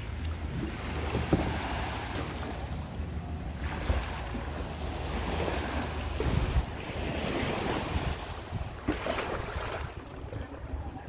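Small waves washing onto a sandy shore, the surf rising and falling every couple of seconds, with wind buffeting the microphone.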